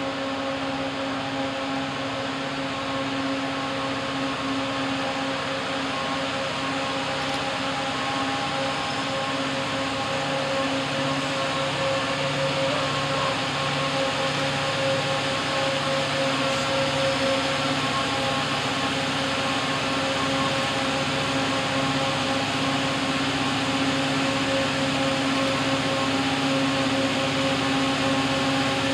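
Diesel locomotives working in notch 8, full throttle, to climb a steep 3.3% grade: a steady engine drone that grows slowly louder as the train approaches.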